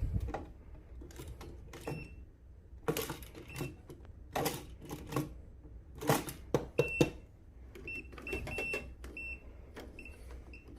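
Sharp handling knocks and clicks, with a voltage tester's short high beeps, a few at first and then many in quick succession in the second half, as the outlet is checked for power.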